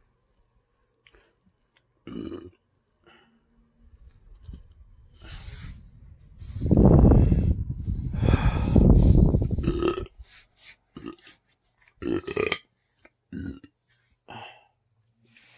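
Deep, loud belches from an overfull stomach: two long ones back to back from about six to ten seconds in, with shorter, smaller burps and breaths before and after.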